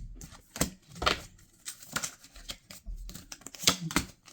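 Oracle cards being shuffled and handled: irregular crisp snaps and papery rustles.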